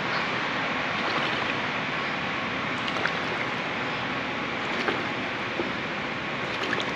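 Steady water noise in a swimming pool, with a few faint small splashes, as a swimmer practises bobbing: exhaling bubbles with her mouth in the water and coming up for quick sips of air.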